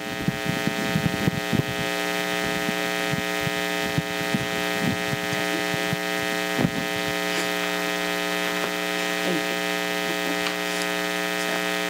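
Steady electrical mains hum in the microphone and sound system, a buzz made of many evenly spaced tones, with a few faint knocks and taps.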